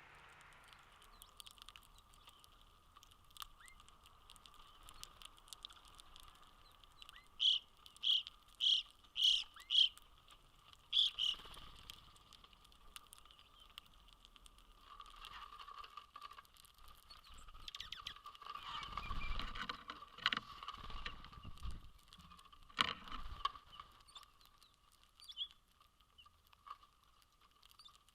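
A bird at a winter feeder calling: a run of five short, loud, evenly spaced calls, followed by one more. Later a low rumble rises and fades.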